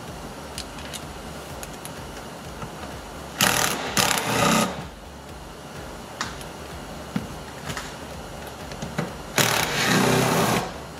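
Cordless power driver with a Torx bit on an extension running in two bursts of about a second each, several seconds apart, backing out the two front seat-mounting bolts. A few small clicks from handling the tool and the seat rail come between the bursts.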